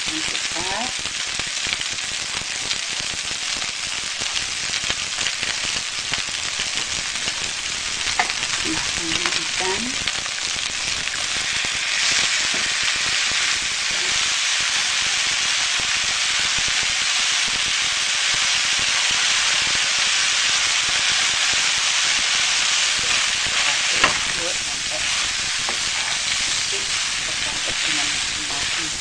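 Fried rice sizzling in a wok while a spatula stirs and scrapes it, with a couple of sharp knocks of the spatula on the pan. The sizzle grows louder about twelve seconds in.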